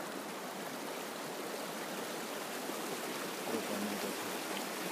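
Shallow, stony hill stream running over rocks: a steady rushing of water.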